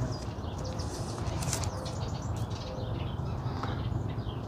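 Packaging rustling and crinkling in light, irregular bursts as the camera is taken out of its box.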